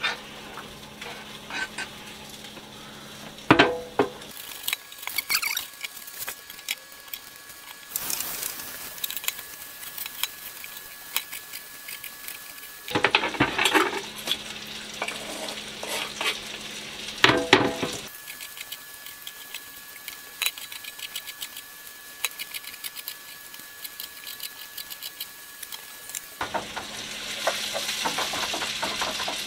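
Diced potatoes and carrots frying in a pan with a steady sizzle, stirred with a wooden spoon. Loud clattering knocks and scrapes of the spoon and utensils come in a few short bursts.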